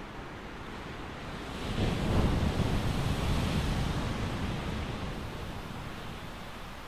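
Surf: a wave breaking and washing in, swelling about two seconds in and fading slowly over the next few seconds, with a low rumble of wind on the microphone.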